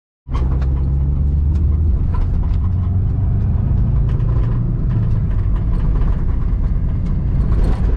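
Vehicle engine running steadily with road and wind noise, heard onboard, with frequent light clicks and knocks over it.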